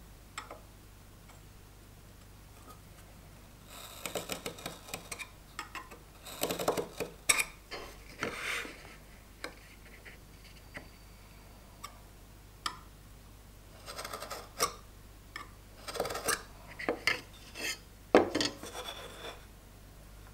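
A steel marking knife scoring layout lines into wood against a sliding bevel, in several bursts of short scratchy strokes. Scattered sharp clicks of metal tools knocking against the wood and bench between them.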